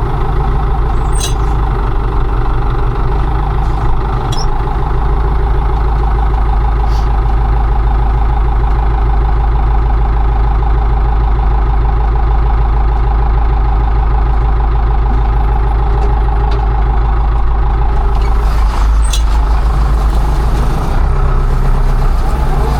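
Combine harvester's diesel engine running steadily under load while harvesting barley, with a few faint clicks over the top.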